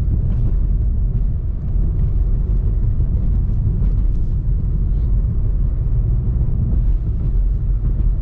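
Road noise inside a Lada Vesta's cabin on a badly broken road: a steady low rumble from the tyres and suspension, with faint knocks and rattles scattered through it.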